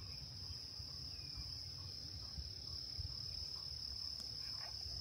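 Crickets trilling in one steady, continuous high note, over a low, uneven rumble.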